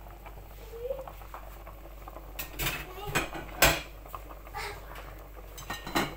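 Glass pot lid and stainless steel cookware clattering and clinking: a few sharp knocks, the loudest about halfway through and another near the end.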